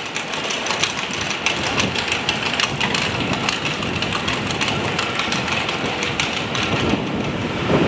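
Steady engine idling with wind buffeting the microphone, which adds a running crackle.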